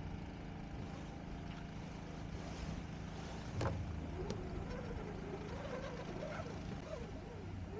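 Hobie Tandem Island spinnaker being hoisted by hand on its halyard: one sharp knock a little after three seconds, then a wavering squeal of line running through the rigging that lasts to the end, over a steady low hum.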